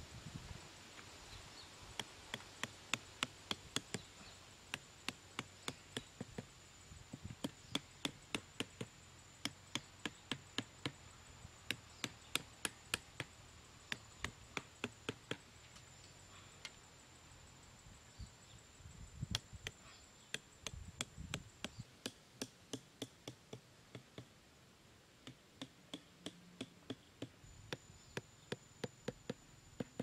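Machete tapping bamboo stakes down into sandy ground: sharp knocks in runs of about three a second, with short pauses between runs. A faint steady high whine runs underneath.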